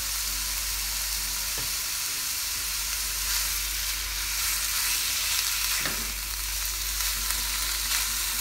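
Spice paste, chicken and carrots sizzling in a frying wok with oyster sauce just stirred in: a steady frying hiss with a few light ticks from stirring.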